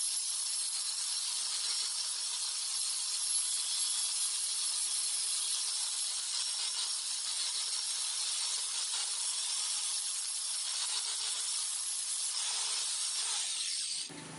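Belt sander grinding the steel of a hatchet: a steady, even abrasive hiss that cuts off abruptly near the end.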